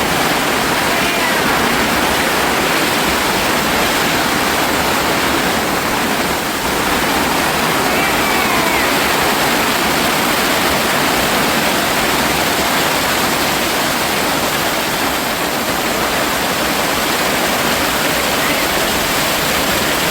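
Loud, steady rush of a violent storm: heavy rain driven by strong wind.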